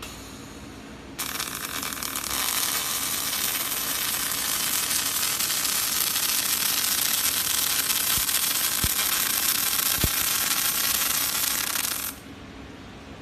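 A robotic welding torch's arc crackles and hisses steadily for about eleven seconds while it lays one weld bead. It starts sharply about a second in and cuts off near the end, over a low steady machine hum.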